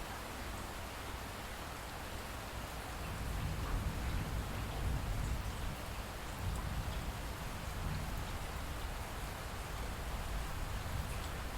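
Steady rain falling, with scattered faint drop ticks. A low rumble comes up about three seconds in and continues under the rain.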